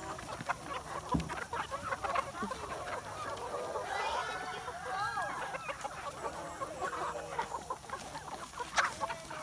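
A flock of free-range chickens clucking as they crowd around feed, many short overlapping clucks throughout. A few sharp taps, the loudest one near the end.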